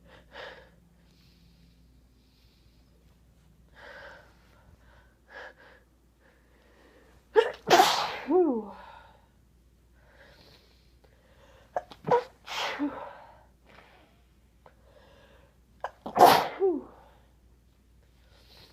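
A person sneezing three times, about four seconds apart: these are the long-held sneezes, which the person felt were stuck, finally coming out. Each sneeze begins with a sharp catch of breath and ends in a voiced sound falling in pitch. A few soft breaths come before the first.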